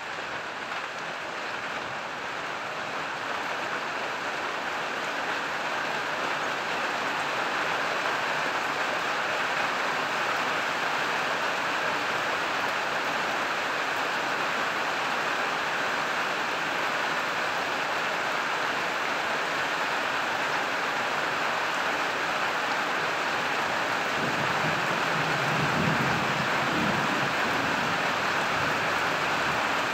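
Rain falling in a summer thunderstorm: a steady wash that builds over the first several seconds, then holds. Near the end a low rumble of thunder comes in.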